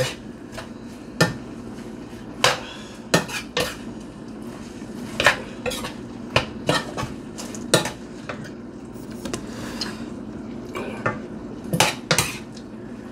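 Metal spatula clinking and scraping against a square nonstick frying pan as greens and meatballs are stirred, a dozen or so irregular sharp clinks.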